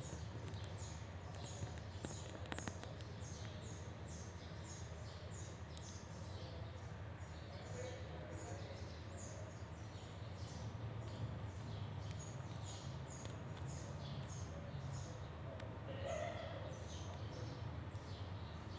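A steady run of short, high chirps, a little under two a second, each sliding down in pitch, over a low steady rumble.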